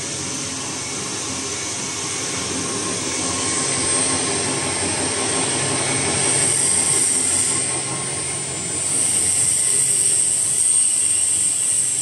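Stainless steel rotary lobe pump running, driven by its electric motor: a steady mechanical hum with a high-pitched whine that grows louder in the second half.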